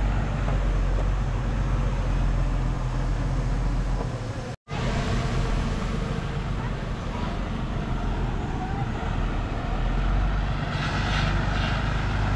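Diesel engine of heavy construction machinery running steadily at a work site. The sound cuts out completely for a split second a little before halfway, and a brief rush of higher noise rises near the end.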